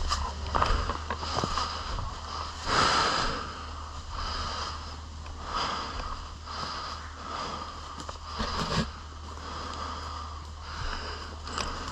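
A person breathing heavily close to the microphone, with a breath about every second and a half and the loudest just under three seconds in, over a steady low hum.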